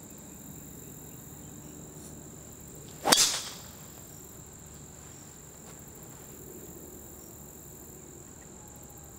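Golf driver striking a ball off the tee: one sharp crack about three seconds in, with a brief ringing tail.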